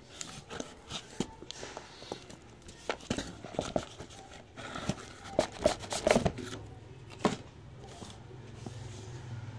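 Cardboard box and packaging being handled: rustling, scraping and sharp knocks, loudest in a cluster of clicks a little past the middle. A low steady hum comes in near the end.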